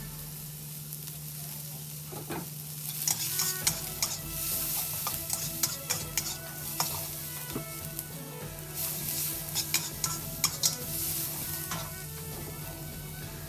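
Onion slices sizzling in a hot wok while a metal wok spatula stirs and scrapes them, with quick clicks and scrapes of metal on the pan. The sizzle and the scraping grow busier about three seconds in.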